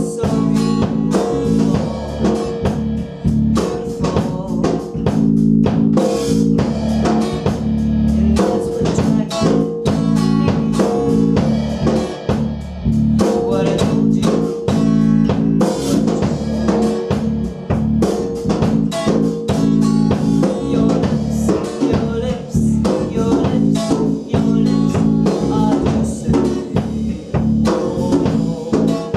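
A small band playing live: acoustic guitar, electric bass and drum kit, with the drums keeping a steady beat.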